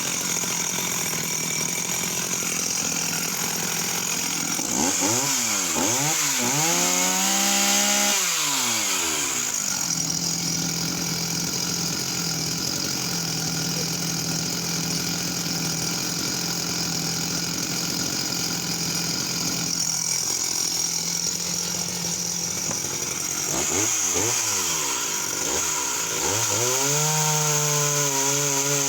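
Sachs Dolmar 111, a 52cc two-stroke chainsaw, running: it idles steadily, is revved up and back down a few seconds in and again about two-thirds through, then is held at high revs near the end.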